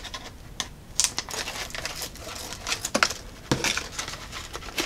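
Snack bag of dried sweet corn being opened and handled: irregular crinkling and rustling of the packaging with a few sharper crackles.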